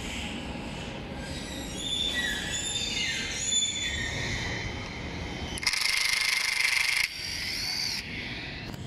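Cordless impact driver working a screw on an electric scooter's rear fender bracket. The motor whines and wavers in pitch as the trigger is feathered. Past the middle it hammers loudly for over a second, then drops back to a lighter whir.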